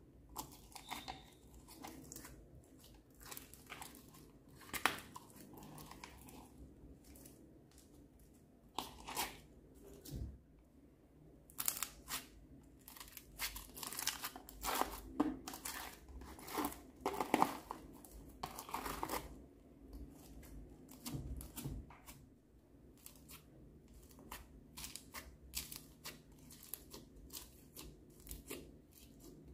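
Hands squeezing, stretching and kneading foam-bead slime, giving irregular sticky crackling and crunching clicks as the beads and slime pull apart, busiest through the middle of the stretch.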